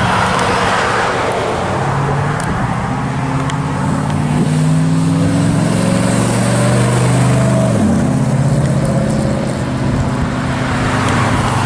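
1957 Chevrolet's engine pulling away under acceleration, its pitch climbing for several seconds. It drops sharply with a gear change about eight seconds in, then pulls on.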